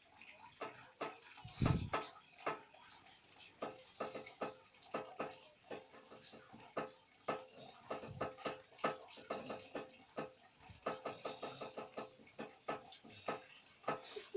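A person snoring in sleep: one short, low snort about two seconds in, amid a run of irregular soft clicks, several a second.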